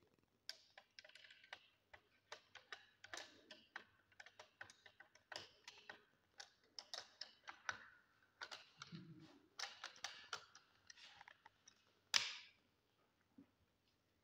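Steel parts of a Type 56 Kalashnikov rifle clicking, scraping and rattling as it is field-stripped by hand, its top cover and recoil spring assembly taken off the receiver, with one loud sharp metallic click near the end.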